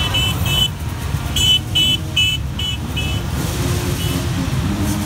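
A small electric vehicle horn tooting in short quick beeps, twice near the start and five more times from about one and a half to three seconds in, over the low steady rumble of many dirt-bike and quad-bike engines rolling slowly.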